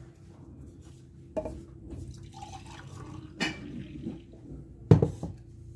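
Frothy blended chocolate milk pouring from a blender jar into a mug, with a few knocks of the jar, the sharpest near the end.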